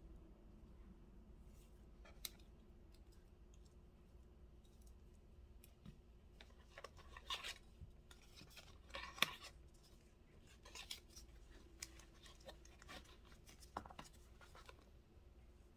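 Faint handling of product packaging: scattered small clicks and rustles, loudest in two brief clusters about seven and nine seconds in.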